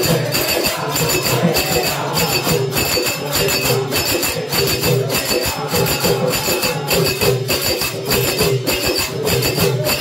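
Group singing a devotional bhajan, accompanied by jingling metal hand percussion struck in a fast, steady beat.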